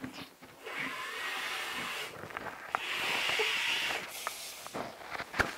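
Lips sucking and slurping at plastic fruit jelly cups, air hissing in around the rims in two long pulls, the second louder, with a few small wet clicks.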